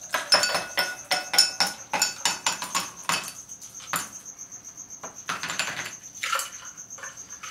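Ice clinking and rattling in a metal cocktail shaker tin as a shaken, creamy drink is poured from it into a tall glass. The clatter is densest for the first three seconds, then comes in a few shorter rattles.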